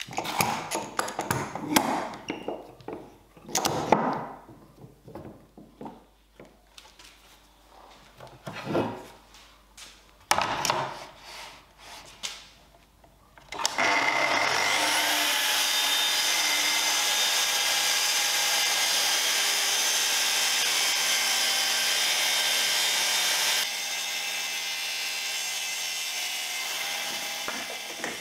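Irregular knocks and scrapes of workpieces being handled, then an electric power tool switches on about fourteen seconds in and runs steadily with a whining motor tone, a little quieter for the last few seconds.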